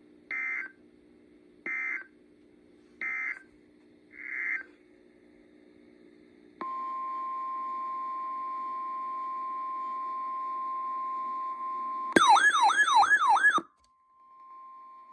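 Emergency Alert System tones over a low radio hum: three short data bursts about a second and a half apart, the end-of-message code, then a fainter fourth burst. About six seconds in, a steady single-pitch alert tone holds for about five seconds. Then comes a loud warbling tone sweeping up and down about three times a second for a second and a half, and a faint steady tone after it.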